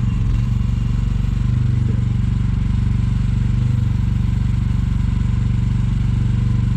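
Mini excavator's engine running at a steady speed, an even low hum.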